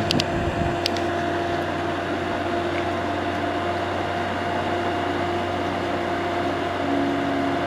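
Midea 5000 BTU window air conditioner running on low cool with its compressor just started: a steady hum with a constant tone over it. With the debris cleared out and the fan turned the right way round, it sounds normal.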